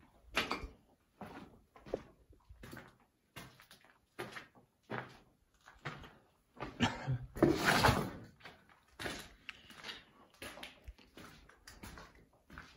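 Footsteps walking at a steady pace on a gritty, rubble-strewn concrete floor, about one crunching step every 0.7 seconds. About seven seconds in, a louder scraping crunch lasts about a second.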